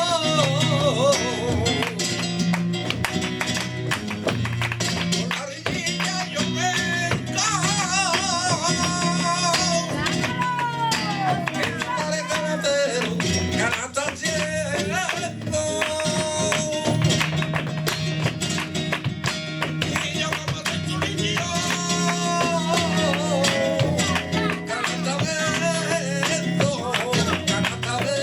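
Live flamenco tangos: a cantaor sings long, ornamented gliding phrases over flamenco guitar, with sharp percussive strikes in the rhythm.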